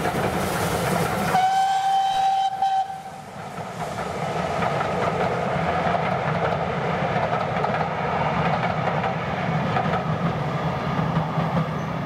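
Steam-hauled passenger train running past, with a single steady steam whistle blast about a second and a half in lasting about a second and a half, then the coaches clattering steadily over the rail joints as they roll by.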